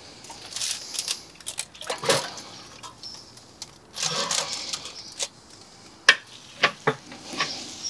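Scattered clicks and light knocks from handling inside an open Big Green Egg ceramic kamado grill, with a brief rustle about four seconds in, as of the foil wrapping around the pastrami tray.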